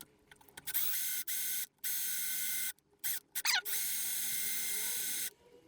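A workshop tool, used on a seized broken-off bolt, runs in three bursts of steady high-pitched hiss with a thin whine. Each burst starts and stops sharply, and short clicks fall between them.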